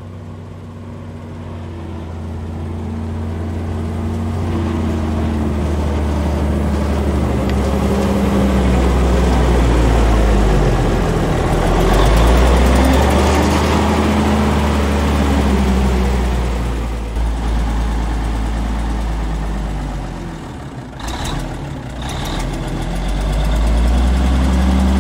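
Diesel engine of a 1950s Euclid off-road truck running as the truck drives, growing louder over the first several seconds, with its engine speed rising and falling.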